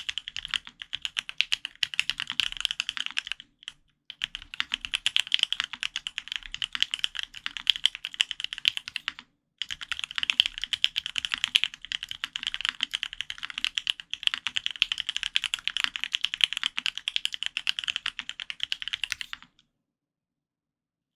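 Continuous fast typing on a custom F1-8X polycarbonate-case mechanical keyboard with lubed Gateron Ink Black v2 linear switches, an FR-4 plate and Linworks Burgundy keycaps: a rapid stream of keystrokes with two brief pauses, stopping shortly before the end.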